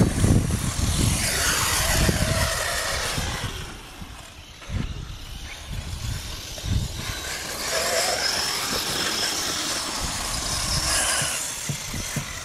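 Electric brushless RC cars running on loose sand, their motors whining in pitches that rise and fall as they accelerate and let off. Bursts of low rumble are heaviest in the first two seconds, and the level dips briefly about four seconds in.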